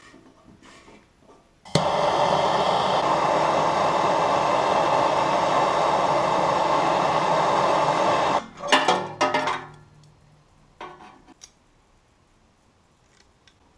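Handheld gas torch burning with a steady loud hiss while heating a copper tube joint, starting suddenly about two seconds in and cutting off abruptly after about seven seconds. A quick run of clicks and knocks follows.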